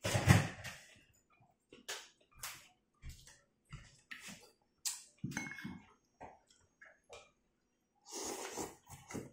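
A person eating rice-noodle soup close to the microphone: short chewing and mouth noises with pauses between them. A loud breathy burst comes right at the start, and a longer noodle slurp comes about eight seconds in.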